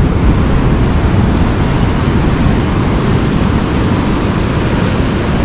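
Heavy surf breaking on the shore, a steady rush of noise, with wind buffeting the microphone.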